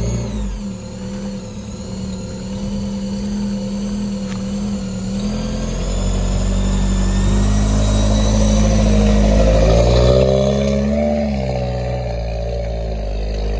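Lifted 4x4 off-road vehicle's engine running as it drives off, with a deep rumble underneath. Near ten seconds in, the revs climb briefly and then drop back.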